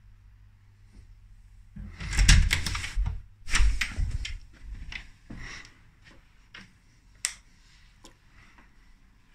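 A panelled interior door being opened by its lever handle: two loud bursts of latch clicks and handle rattling about two and three and a half seconds in, then a few lighter knocks and a sharp click.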